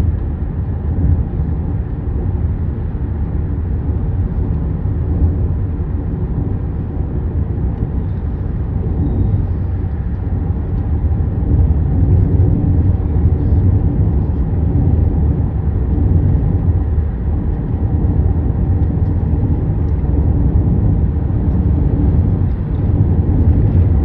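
A car driving along a highway, heard from inside the cabin: a steady low rumble of road and engine noise.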